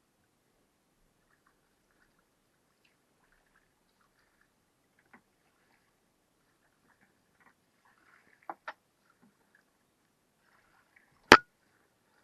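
Mostly quiet, with faint scattered ticks, two light clicks about eight and a half seconds in, and one loud, sharp knock near the end.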